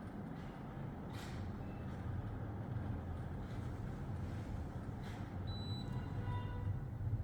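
Sharp AH-A18ZCY split air conditioner running with a steady low hum that grows slightly louder. A few faint short tones sound about five and a half seconds in.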